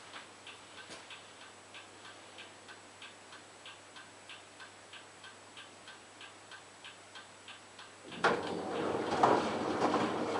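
LG washing machine running a wash programme: a faint, regular ticking about three times a second, then a much louder rushing noise starts abruptly about eight seconds in.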